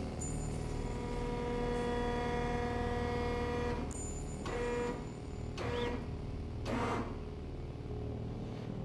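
Large board press running as its platens close down onto stacked wooden boards: a steady motor hum with a clear pitched tone for about four seconds, then a few short louder sounds in the second half.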